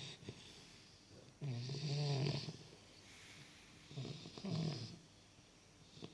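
English bulldog puppy snoring in its sleep. Two loud snores, one about a second and a half in and one about four seconds in, each a low buzzing rattle with a hiss over it, with quieter breathing between.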